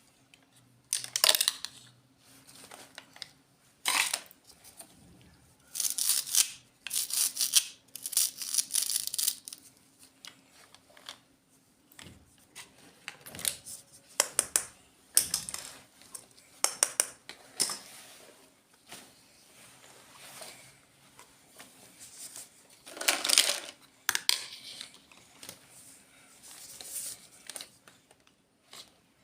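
Plastic packaging crinkling and tearing in irregular bursts as small toy items are unwrapped, some bursts sharp and brief, others longer rustles, with a faint steady hum underneath.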